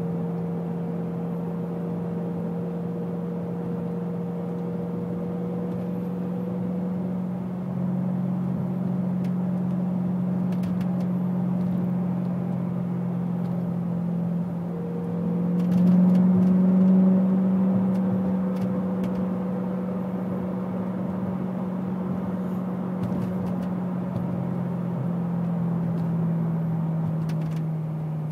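BMW E92 M3's 4.0-litre V8 running through an aftermarket Agency Power exhaust, Fabspeed X-pipe and high-flow catalytic converters, heard inside the closed cabin as a steady low drone at cruising revs. About halfway through it swells louder and a little higher in pitch for a few seconds, then settles back.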